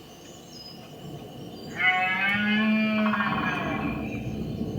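A long, drawn-out animal call begins about two seconds in and holds its pitch for more than a second; a second call starts near the end, over a steady background of outdoor noise.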